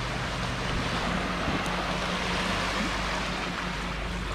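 Steady rushing wash of sea water at the shore, with a faint low hum underneath.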